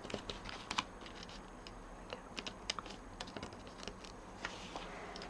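Scattered, faint, irregular clicks and taps of paper and cardstock pieces being handled and pressed down on a crafting work surface.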